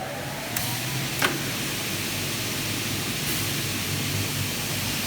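Double mitre saw running with a steady rushing noise, its motors just up to speed, with two sharp clicks about half a second and just over a second in.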